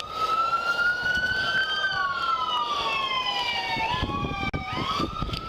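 Police car siren wailing: a slow rise in pitch for about two seconds, then a slow fall, with a new rise starting about four seconds in. Underneath it are scuffs and knocks.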